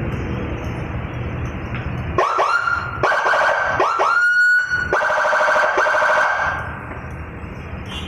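Motorcycle-mounted 12-tone police-escort (patwal) siren being tested. About two seconds in it gives a run of quick rising whoops, then settles into a held high tone that breaks into a fast warble. It cuts off about six and a half seconds in.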